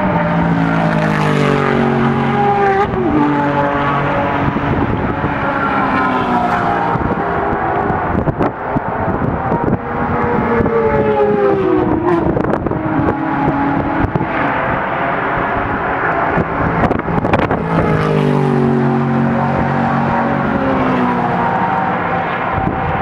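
A stream of sports-car racing cars running past one after another, their engines loud and continuous, with engine notes that repeatedly drop in pitch as each car passes or shifts up. A few sharp cracks are heard in the middle stretch.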